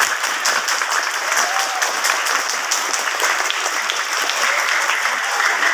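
A large crowd of students applauding: steady, dense clapping from many hands, with a few voices faintly heard through it.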